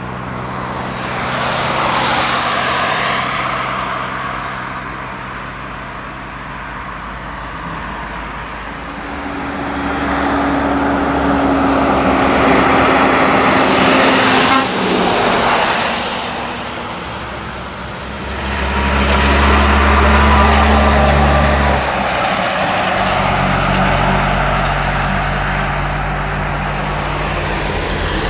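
Road traffic passing close by: cars and heavy diesel trucks go past one after another. About halfway through, a DAF XF tanker truck passes, its steady engine tone dropping in pitch as it goes by. A deep low engine rumble follows later.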